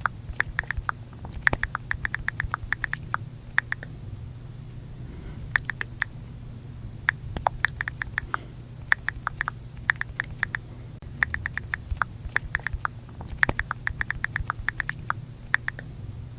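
iPhone keyboard click sounds from typing on the touchscreen: quick runs of short clicks, several a second, broken by brief pauses.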